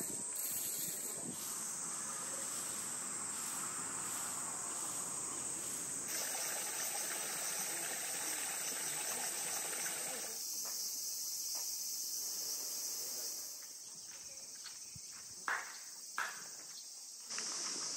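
Cicadas buzzing steadily in summer woodland, a dense high-pitched drone that shifts in level and tone at each cut between shots. Two short, sharp sounds stand out near the end.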